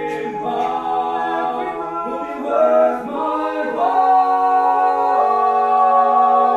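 Several voices singing unaccompanied in harmony, holding long notes.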